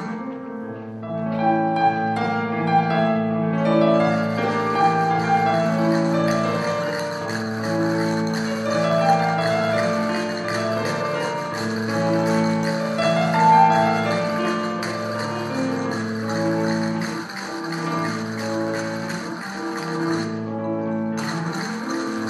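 Instrumental music with long held notes.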